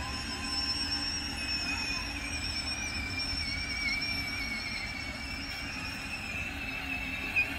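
Electric motors and gearboxes of battery-powered ride-on toy cars whining steadily, the high whine wavering slightly in pitch as they drive. A short knock near the end.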